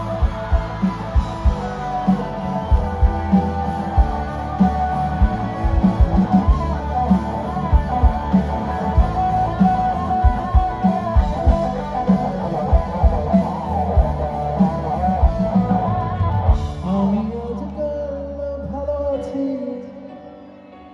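Live rock band playing loud amplified music with electric guitars, keyboard and a steady drum beat. About three-quarters of the way through the drums stop and the music drops to a quieter, thinner passage.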